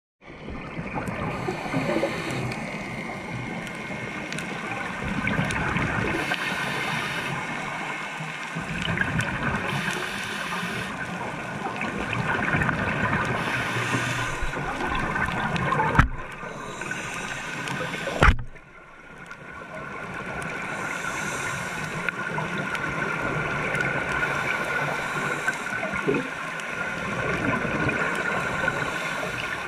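Underwater sound of a scuba diver breathing through a regulator: exhaled bubbles gush out about every four seconds over a steady hum. Two sharp knocks come a couple of seconds apart just past the middle.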